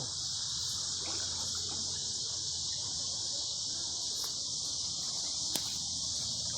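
Steady high-pitched chorus of insects such as crickets, droning without a break, with a single sharp click about five and a half seconds in.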